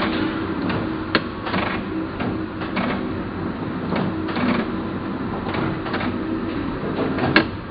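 Heidelberg Cylinder S press running under power, a steady mechanical hum with rhythmic clacking about twice a second as the cylinder turns and the grippers and sheet mechanism cycle. One sharper clack comes about a second in and another near the end.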